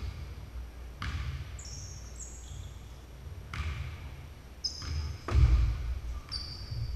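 Basketball shoes squeaking on a hardwood gym floor, several short high squeaks, mixed with basketball bounces and thuds in a large gymnasium. The loudest is a heavy low thud a little past five seconds in.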